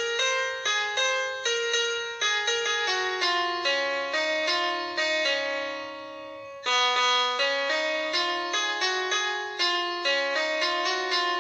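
Background music: a light keyboard melody of quick single notes, each struck and dying away. About six and a half seconds in, a phrase ends on a held note, then the tune starts again.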